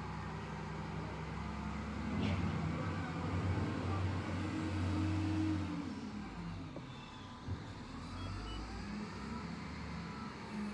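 SDLG wheel loader's diesel engine running, revving louder about two seconds in as the machine drives its bucket into a dirt pile, then dropping back to a lower run about six seconds in. A single short knock comes near the middle.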